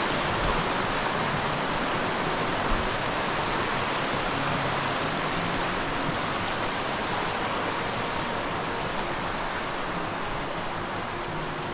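Steady rush of flowing river water, slowly fading a little toward the end.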